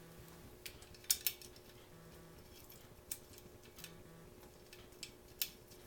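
Scattered small metallic clicks and ticks as Allen bolts are started by hand into a billet aluminium radiator guard, about seven in all, over a faint steady hum.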